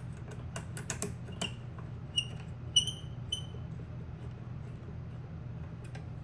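Small clicks and taps of a steel hex key working the adjuster screw into the Onewheel GT's aluminium VRH swingarm, with three short ringing metallic pings a little past two seconds in. A steady low hum runs underneath.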